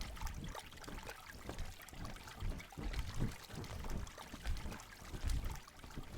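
Foley of bird wings flapping: a fast, irregular run of fluttering flaps, each with a soft low thud.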